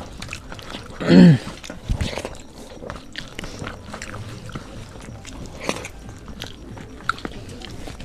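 Close-up eating sounds of two people eating by hand: chewing, biting and small wet clicks. About a second in comes a short voiced sound, like a hum or grunt, which is the loudest sound here.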